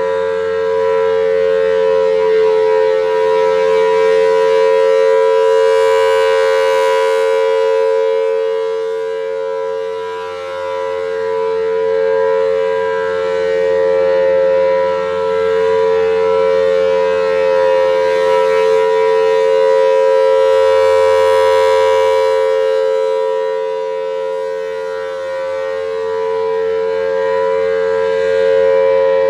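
Federal Signal Thunderbolt 1000T outdoor warning siren sounding its steady full-alert tone, held at one pitch and slowly swelling and fading in level. The pitch wobbles a little, and the tone is starting to get a bit pitchy.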